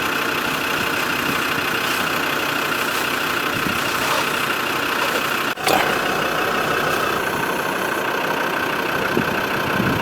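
Old Land Rover's engine running steadily, with a short drop about halfway through.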